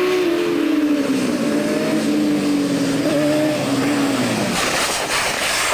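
Sport motorcycle engines running at high revs, their pitch falling slowly as the bikes go past. The engine note drops away about four and a half seconds in, leaving a hiss.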